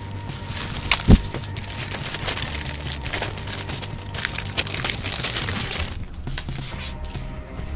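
Bubble wrap crinkling and rustling as it is pulled open by hand, with scattered small crackles and one loud thump about a second in.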